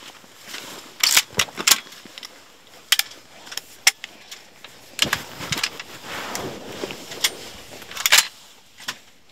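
A shotgun's action being handled, a series of sharp, irregularly spaced metallic clicks and clacks, with a double clack near the end, and clothing rustling in between.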